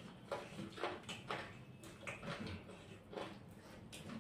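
Eating sounds as chicken curry and rice are eaten by hand: a string of short, soft, irregular noises of chewing and of fingers working the food on the plates.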